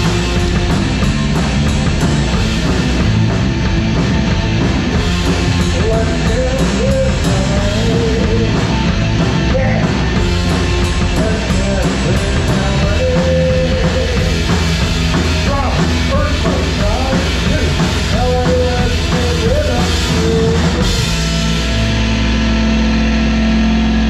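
Live rock band playing loud, with drums and distorted electric guitar under a lead line of bent notes. About 21 seconds in the drumming stops and a final chord rings out.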